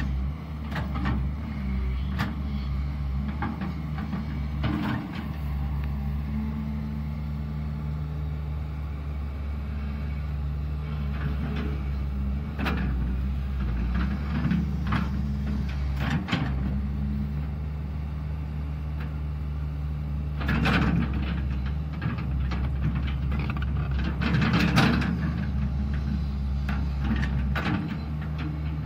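Caterpillar 320 hydraulic excavator's diesel engine running steadily as it digs, with scattered knocks and scrapes of the bucket working the soil, the loudest about three-quarters of the way through and near the end.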